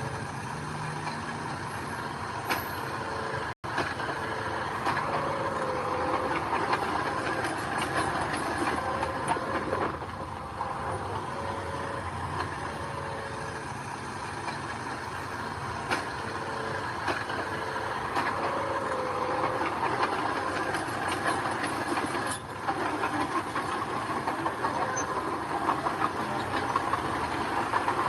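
Heavy earthmoving machinery at work: the diesel engines of a bulldozer and dump truck running steadily, with scattered clanks and knocks. The sound drops out for an instant about three and a half seconds in.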